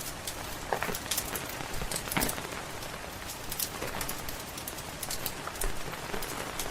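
Steady rain hissing, with the irregular sharp snaps and pops of a crackling wood fire.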